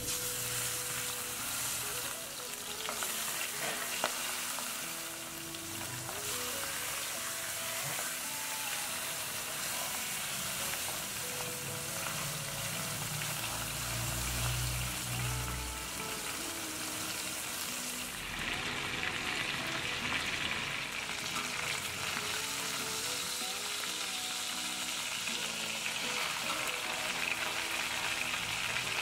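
Food frying in a hot pan, with a steady sizzle. About two-thirds of the way in the sizzle turns sharper and thinner, as at a new stage of the cooking. Soft guitar music plays underneath.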